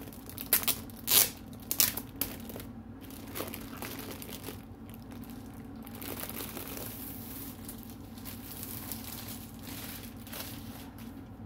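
Clear plastic wrapping crinkling as a rolled diamond-painting canvas is worked out of it, with a few loud, sharp crackles in the first two seconds, then a softer, steady rustle.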